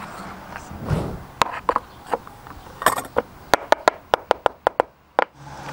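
Sharp clicks and taps of a metal spoon and fingers on a plastic measuring cup while pancake mix is spooned in and levelled. Scattered knocks at first, then a quick run of about ten taps near the end.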